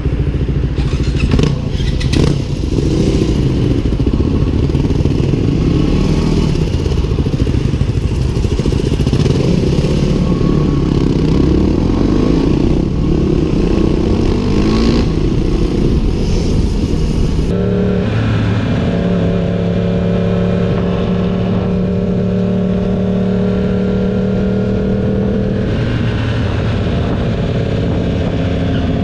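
Motorcycle engine running under way, its pitch wavering up and down. About two-thirds of the way through the sound cuts abruptly to a steadier engine hum at a near-constant pitch.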